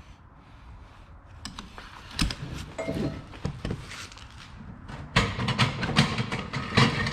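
Metal hardware of a ratchet tie-down strap clanking and rattling as the strap is handled. A few scattered knocks come first, then a busy run of clicks and rattles from about five seconds in.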